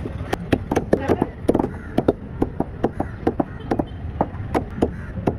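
Heavy fish knife chopping a barracuda into steaks on a wooden block: a fast run of sharp knocks, about five a second.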